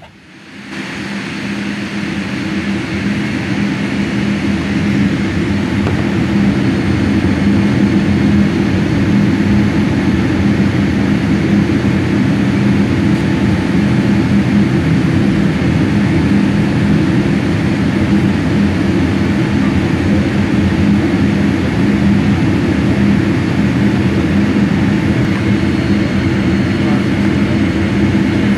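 Steady cabin noise of a Boeing 787-8 taxiing: a low engine hum with a rush of air, rising over the first few seconds and then holding even.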